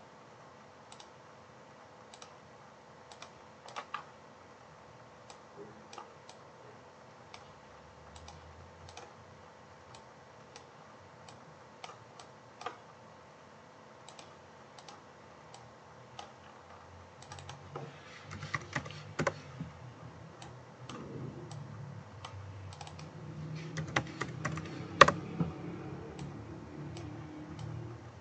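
Scattered clicks of a computer keyboard and mouse, a few at a time, growing busier in the last ten seconds with a low rumble under them and one sharper click near the end.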